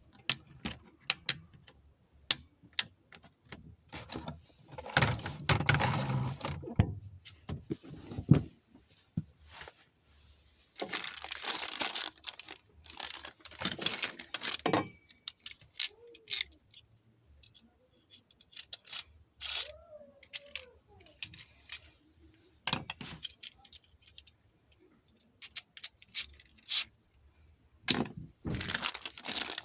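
Small plastic spinning-top parts and packaging being handled: scattered sharp clicks and rattles, with two longer bursts of rustling and tearing.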